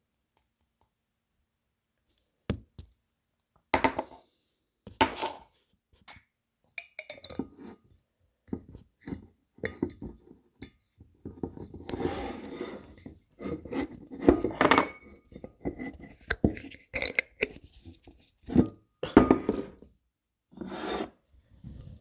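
Glass bottles being handled and moved on a tabletop: a few separate knocks, then a busier stretch of rubbing and scraping with more knocks and clinks.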